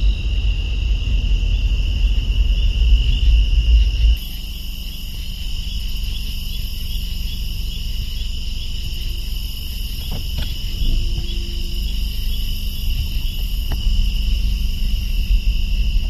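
Steady high trilling of night insects, heard over the low rumble of a car, which drops off sharply about four seconds in.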